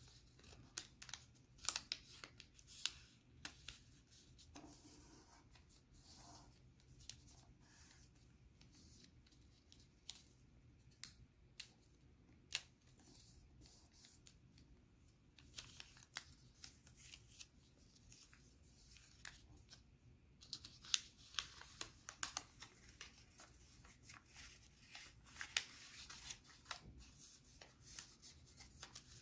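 A sheet of origami paper being folded and creased by hand: scattered short, crisp paper crackles and rustles, with a busier stretch of rustling in the last third.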